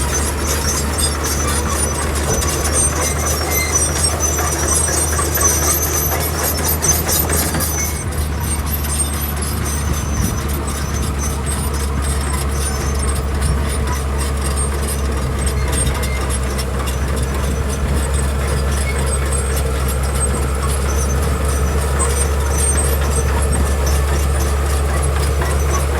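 Heavy diesel engine of road-building machinery running steadily under load, a continuous low drone. Dense high clicking and rattling rides over it for the first eight seconds or so, then eases.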